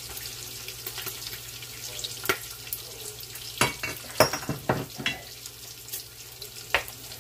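Bacon sizzling and crackling as it pan-sears in a Ninja Foodi PossibleCooker Pro, with a few clinks of a metal measuring cup and spoon against a glass mixing bowl between about three and five seconds in.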